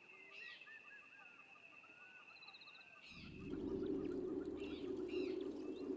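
Wild ambience: scattered bird chirps over a steady high insect drone; about halfway through, a louder steady low rushing noise sets in, with more bird calls over it.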